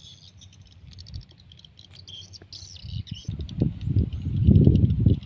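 Rapid high-pitched chirping of birds and insects, with a burst of low rumbling, thumping noise that builds from about three seconds in and is loudest near the end.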